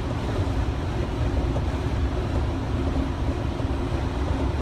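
Steady in-cab drone of a 2015 Freightliner tractor driving at highway speed: engine hum with low road and tyre rumble.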